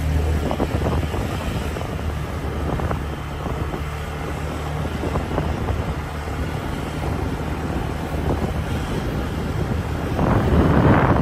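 Wind buffeting the microphone over a steady low rumble, growing louder about ten seconds in.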